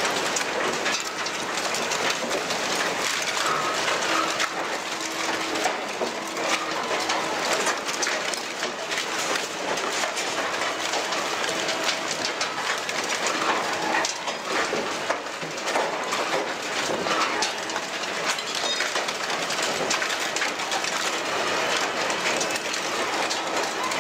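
Industrial mobile shredder running, with shredded scrap clattering off its discharge conveyor: a dense, steady rattle made of many small knocks.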